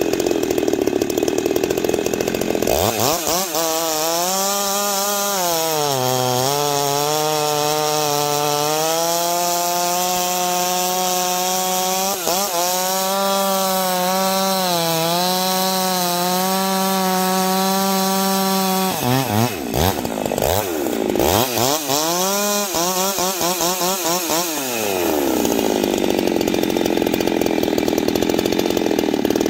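Husqvarna 390 XP chainsaw's two-stroke engine at full throttle, revving freely at first and then cutting into a large log. In the cut the engine note sags under load and recovers several times, with a few quick rises and falls about two-thirds of the way through, before the saw comes out of the wood and runs freely again near the end.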